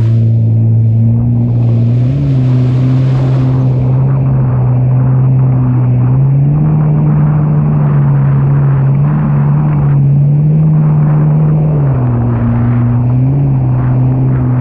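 Jet ski engine running hard at a steady speed, its pitch stepping up about six seconds in and dropping back near the end, with the rush of water and spray under it.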